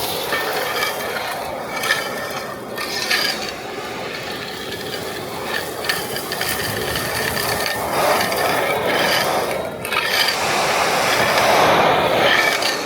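ECOBULL TAN industrial vacuum with a three-phase side channel blower, running under suction while it picks up dry foundry debris. Metal chips and slag rattle and clatter through the hose and pickup tool, loudest a few seconds from the end. The sound drops away abruptly at the very end.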